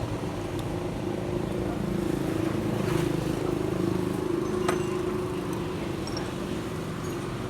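A motor vehicle engine running steadily nearby, a low, even hum that swells slightly in the middle, with a couple of light clicks.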